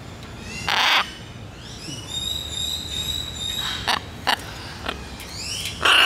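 Blue-and-yellow macaw giving two short, harsh squawks, one about a second in and one at the end. Thin whistled bird calls with rising glides sound between them.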